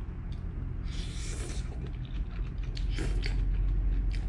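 A person eating saucy, sticky fried Hokkien prawn noodles, slurping and chewing, with a hissy slurp about a second in and small clicks and smacks near the end.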